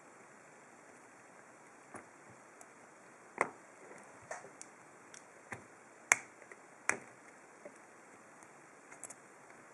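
Small, sharp clicks, irregularly spaced, from a long hook pick and tension wrench working the pins of a split-core 7-pin pin-tumbler lock. Three louder clicks stand out in the middle, over a steady faint hiss.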